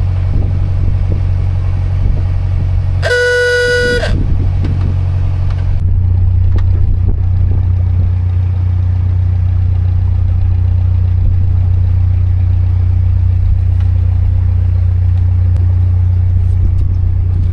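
Narrowboat engine running steadily at low revs, with a single horn blast of about a second a little over three seconds in.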